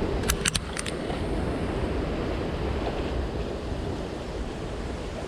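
Steady rushing of a jungle stream, with four sharp clicks in the first second.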